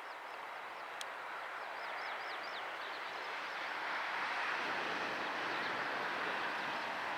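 Airbus A380 on final approach with its Rolls-Royce Trent 900 engines at a distance: a steady jet rush that grows gradually louder as it nears. A bird's quick falling chirps come and go over it, and there is one sharp click about a second in.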